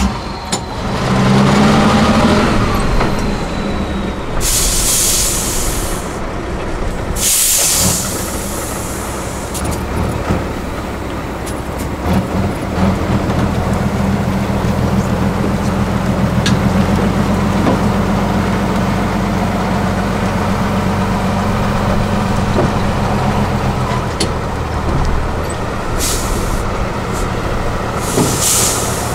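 Diesel engine of an 8x8 trial truck running under load as it crawls off-road, revving up about a second in and then pulling steadily. Air brakes hiss loudly four times: twice around five to eight seconds in and twice near the end.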